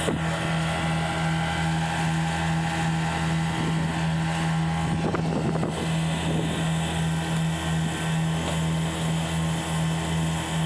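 The engines of a small fibre fishing boat running steadily under way, a continuous even drone.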